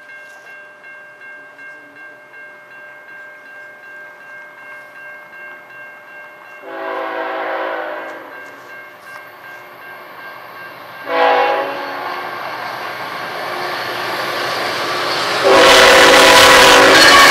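Level-crossing warning bell ringing steadily while an approaching CN freight locomotive's air horn sounds a long blast, then a short one. Near the end the lead locomotive passes close by, suddenly very loud, its horn still blowing over the rush and rumble of the train.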